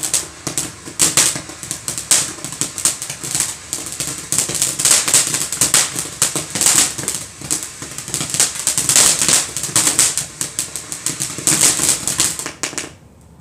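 TNT Fireworks 'Wild Blue' ground fountain spraying sparks with dense, rapid crackling that comes in surges, then stops abruptly near the end as the fountain burns out.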